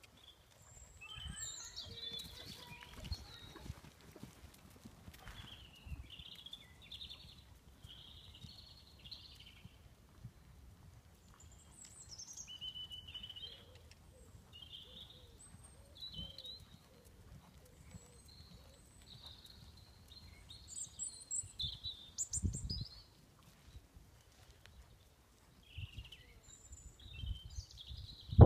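Small birds chirping and singing on and off, over the soft, irregular thuds of a ridden horse's hooves on a sand arena surface, with one louder thud about 22 seconds in.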